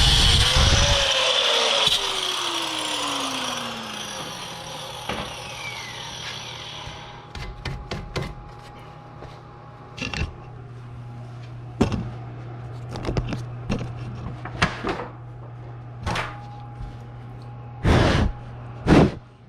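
Tools and metal parts knocking and clicking at irregular moments during suspension work, over a steady low hum, with a few louder knocks near the end. At the start a loud running noise cuts off and a whine falls slowly away as something winds down.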